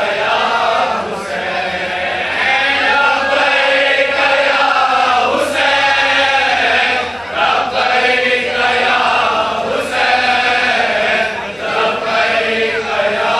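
A crowd of men chanting a Shia mourning noha together in unison, many voices singing one line at full strength.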